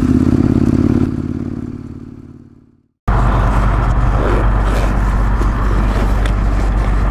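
Adventure motorcycle engine running steadily with wind noise, fading out over about two seconds to silence. Then a new steady, loud engine drone with rushing noise cuts in abruptly.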